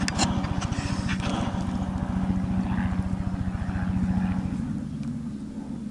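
An engine running steadily: a low, even drone with a fast regular pulse underneath, easing off about five seconds in.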